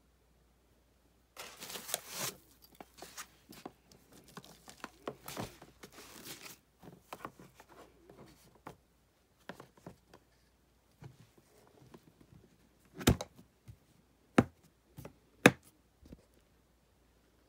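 Handling noise from an Apache 3800 plastic hard case and its contents: irregular rustling and scraping of foam padding and cables. In the second half there are three sharp plastic clacks about a second apart.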